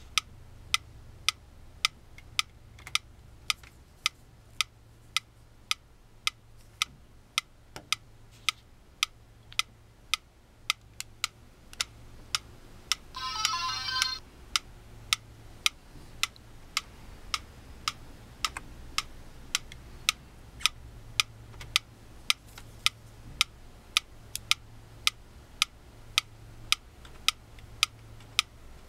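Mechanical metronome ticking steadily, about two ticks a second. About halfway through there is roughly a second of electronic beeping.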